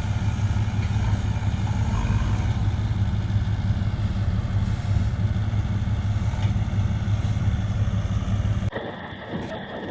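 Bobcat E50 compact excavator's diesel engine running steadily with a low hum. It cuts off abruptly near the end.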